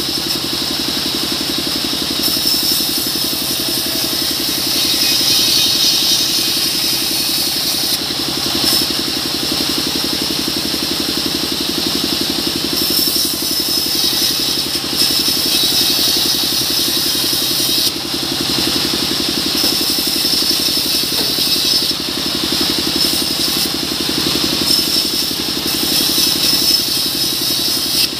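Vertical band saw running steadily while ripping mahogany planks. A high, hissing cut swells and eases every few seconds as each board is fed through the blade.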